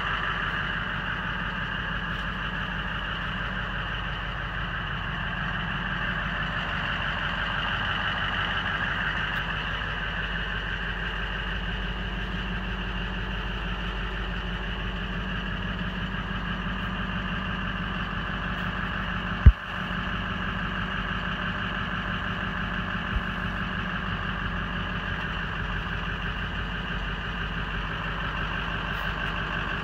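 A 2004 Ford F-550's 6.0-litre Power Stroke V8 turbo-diesel idling steadily, heard from inside the cab. A single sharp click about two-thirds of the way through.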